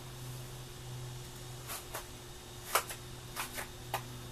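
Black protective gloves, sticky with expanding foam, being pulled off the hands: a handful of short sharp snaps and crackles, the loudest a little under three seconds in, over a low steady hum.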